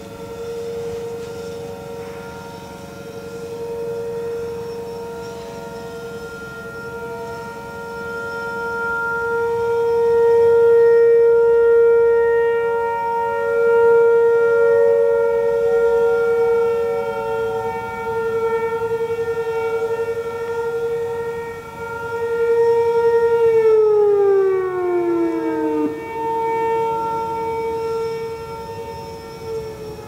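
Outdoor warning sirens sounding a steady tone, more than one at once. About 23 seconds in, one siren winds down, its pitch sliding lower, while another keeps sounding.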